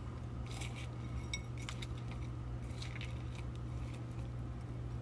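Metal fork clinking and scraping against a glass salad bowl as the dressed salad is tossed, in scattered light clicks, over a steady low hum.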